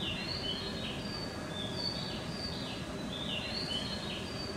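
Recorded birdsong chimes from a station platform's audio guidance, short high chirps and whistles in a pattern that repeats identically about every three seconds, over a steady low rumble.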